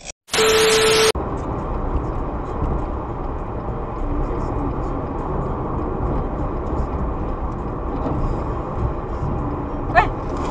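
Steady road and engine noise of a car driving at highway speed, heard from inside the cabin. Just after the start, a loud burst of hiss with a steady beep-like tone cuts in and stops abruptly after under a second. Near the end there is a short sharp sound with a brief rising tone.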